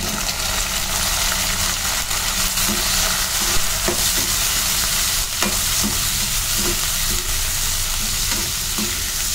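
Sliced onions and green chillies sizzling in hot oil in a kadai, stirred with a perforated steel skimmer that scrapes and clicks against the pan a few times. The vegetables have just gone into the oil and are starting to sauté.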